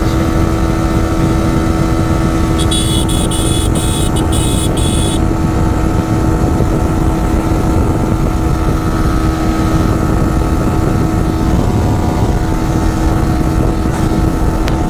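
Yamaha R15 V4's single-cylinder engine running steadily at highway speed, with heavy wind rushing over the microphone. About two and a half seconds in, a rapid high ticking lasts a couple of seconds.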